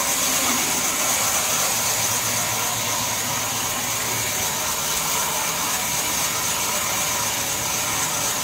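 Sawmill band saw running and cutting lengthwise through a jackfruit wood log: a steady high hiss from the blade in the wood over the machine's drone.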